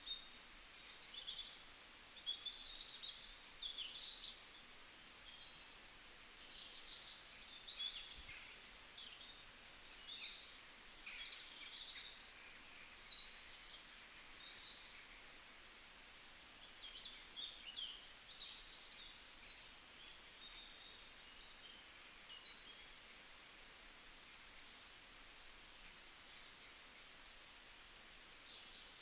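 Birds chirping and singing in short, high phrases again and again, faint over a steady background hiss.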